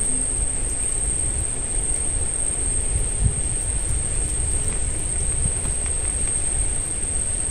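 Night insects keeping up a steady high-pitched drone over a continuous low rumble.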